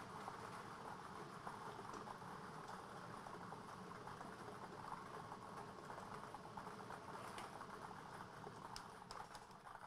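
Plastic lottery balls rattling as they tumble inside rotating clear ball drums, a dense, fast patter of small clicks, with a few sharper clicks near the end as balls settle.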